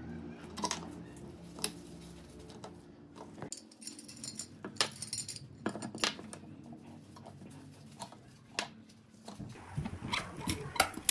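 Steel C-clamps clinking and knocking as they are set on the curved wood pieces and screwed tight: scattered separate metallic clicks and knocks. A low steady hum runs under the first few seconds and then stops.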